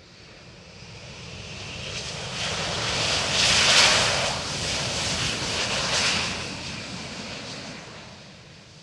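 Antonov An-158 regional jet, powered by two Progress D-436-148 turbofans, flying past: the jet noise builds to a peak about four seconds in, then fades away.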